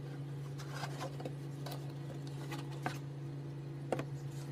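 Cardboard laptop packaging being handled: several light taps and clicks as box lids and trays are lifted and set down, over a steady low hum.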